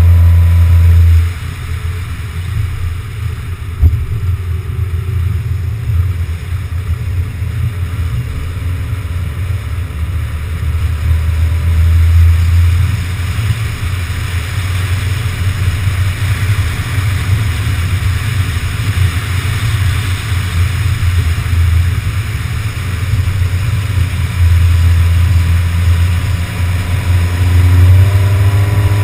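A car driving, heard from a camera mounted outside on its body: a steady rumble of wind and road noise. The engine's hum is heard at the start and drops away after about a second. It returns near the end, rising slightly in pitch as the car speeds up. There is a single knock about four seconds in.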